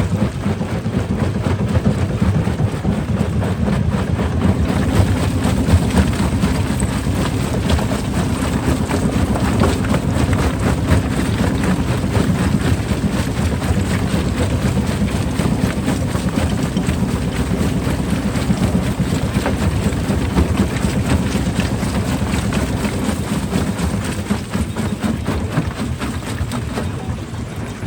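Heavy rock-crushing machinery running: a steady low engine drone with dense rattling and crunching of stone over it.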